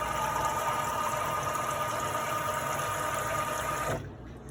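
Electric depositor's stainless steel impeller pump running with a steady whine while water sprays out through a dripless shower-head spout, stopping abruptly about four seconds in as the 250-millilitre dose ends.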